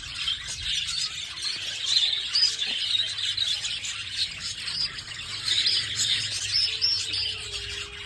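A crowd of caged budgerigars chattering, a dense, continuous mass of overlapping high chirps and tweets.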